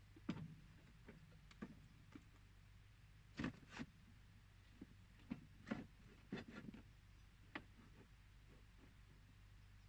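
Scattered light knocks and clicks of plumbing parts being handled while fitting a rubber seal into a pipe coupling, over a low steady hum.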